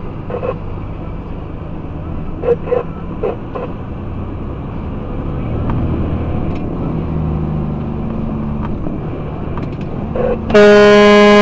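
Truck's engine running, heard inside the cab, its low note shifting up and down. Near the end the truck's horn starts suddenly in one long, steady, loud blast as a car cuts in front.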